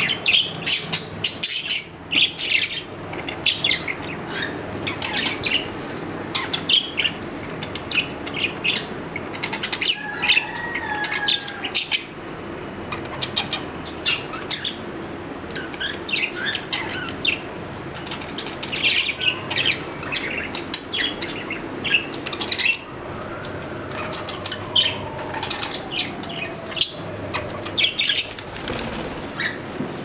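Caged budgerigars chattering with many quick, short chirps, with wings fluttering as birds flap about the cage.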